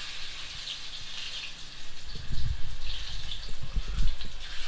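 Hot oil sizzling in a steel kadhai as gram-flour pakora batter is dropped in by hand, the hiss swelling and easing with each addition. Dull low knocks join in from about two seconds in.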